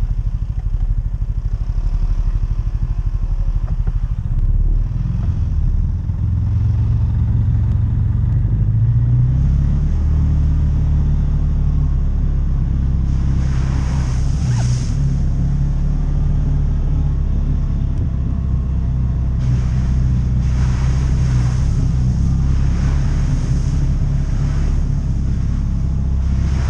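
Side-by-side off-road vehicle's engine running steadily, picking up revs a few seconds in as it pulls away. About halfway through, a rush of splashing mud and water hits the hood as it drives through a puddle, and more spray hiss follows near the end.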